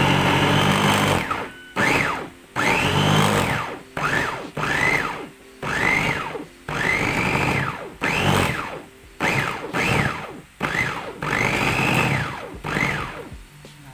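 Electric mini food chopper pulsed about a dozen times, its motor whine rising as it spins up and dropping away each time it is released. The blades are chopping chillies, shallots and shrimp paste in short pulses to keep the sambal paste coarse.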